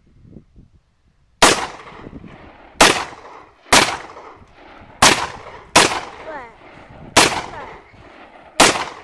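AR-15 rifle firing seven semi-automatic shots at an uneven pace, each one loud and sharp with a short echoing tail.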